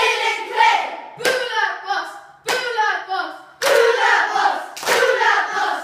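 A group of boys chanting a haka in Irish in unison, punctuated by four sharp hand strikes about a second apart.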